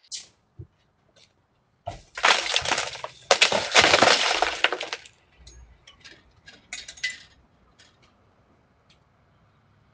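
Glass being smashed, shattering for about three seconds, followed by a few scattered clinks and ticks of pieces falling; the sound of a forced entry through glass.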